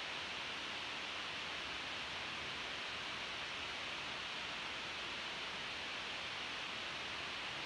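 Steady, even hiss of room tone, with no other sound standing out.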